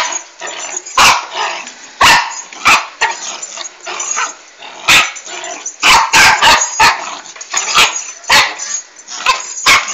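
Dog barking in short, sharp yaps, about a dozen at irregular intervals, some coming in quick pairs.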